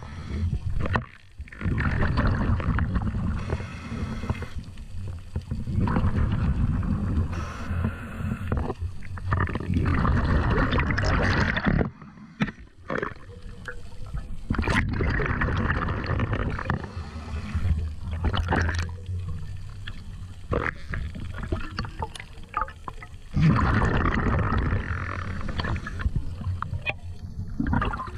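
Underwater noise picked up through a camera housing on a speargun as it moves through the water: a low, muffled rushing with gurgles, dropping out briefly about a second in and again around twelve seconds in.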